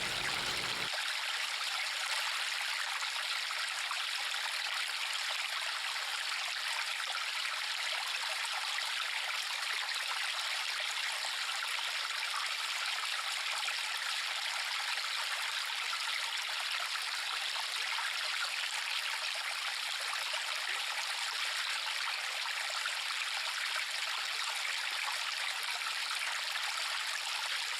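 River water flowing steadily, an even rushing hiss with no low rumble.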